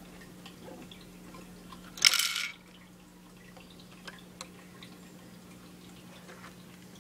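A short burst of rattling plastic about two seconds in as the Lego garbage truck's rear loading mechanism is turned, followed by a few faint clicks over a faint steady hum.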